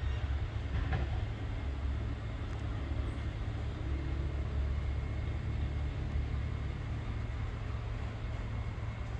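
Low, steady rumble of a diesel-hauled freight train heard from a distance after it has passed.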